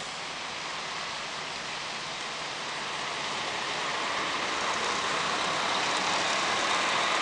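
Diesel highway coach pulling away and turning close past, its engine and tyre noise growing louder over a steady hiss as it nears.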